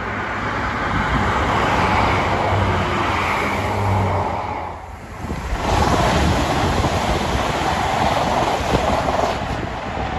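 Diesel trains passing close by at speed. First a diesel multiple unit runs past with a low engine hum under the rush of its wheels. Then, about five seconds in, an East Midlands Railway Class 222 Meridian diesel unit passes with a louder rushing noise.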